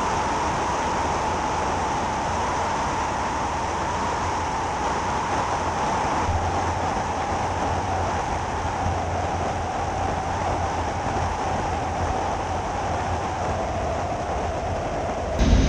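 Jodel D11 ultralight's engine and propeller running with a steady drone and a held whine that sags slightly in pitch. Just before the end the sound jumps suddenly louder and deeper.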